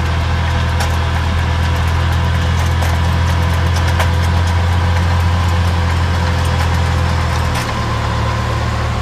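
Tractor engine running steadily under load as it drives a Brevi power harrow through the soil: a deep, even drone with a faint steady whine above it. There are a few sharp ticks.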